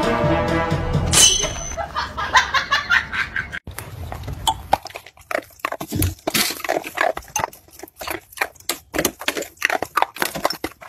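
Music from the previous clip for about the first second, then a dog barking in quick, short yaps, several a second.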